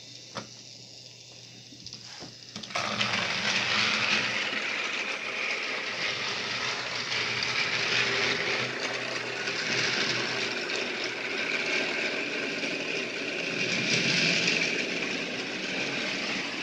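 Battery-powered TrackMaster toy train engines running on plastic track: a steady high motor whir with wheel rattle that starts suddenly about three seconds in, after a couple of faint clicks.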